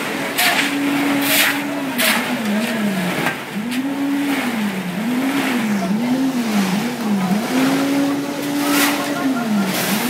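Concrete mixer's engine running. Its note holds steady, then repeatedly sags and recovers, about once every 0.7 s in the middle stretch and again near the end, as it labours under the load of concrete. Shovels scrape sharply through wet concrete a few times over it.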